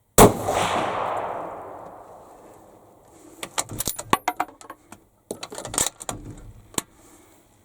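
A single shot from a Remington 700 VLS rifle in .308: a sharp crack about a quarter second in, then a long rumbling echo that fades over about three seconds. After it, a scatter of metallic clicks and clinks for several seconds as the rifle is handled.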